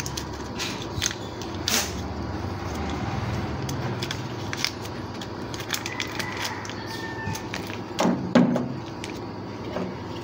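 Hands handling a washing machine's wiring and its motor capacitor: scattered clicks, rustles and light plastic knocks, with a louder clatter about eight seconds in, over a steady low background hum.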